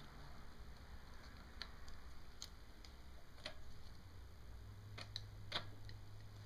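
About half a dozen faint, sharp clicks and taps, spread over several seconds, of small metal parts being handled while an automatic cam chain tensioner is fitted to a motorcycle engine.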